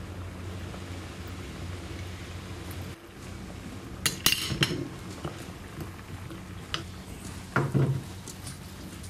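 Cooking utensils clinking and knocking against a pan: a burst of clinks about four seconds in, a lone click near seven seconds, and a heavier clatter just before eight seconds. Under them runs a steady low hum that stops about three seconds in.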